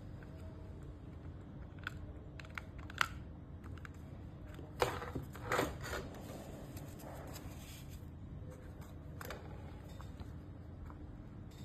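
Scattered small clicks and light knocks of small parts being handled, with a brief louder scraping rattle about five seconds in, over a low steady hum.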